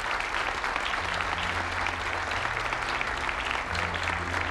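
Audience applauding, a dense steady clatter of many hands clapping, over music holding low bass notes that change every second or so.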